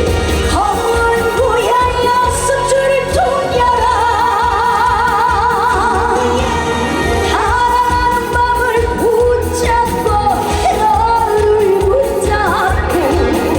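A female trot singer singing live with band accompaniment, her held notes wavering in a wide vibrato over a steady beat.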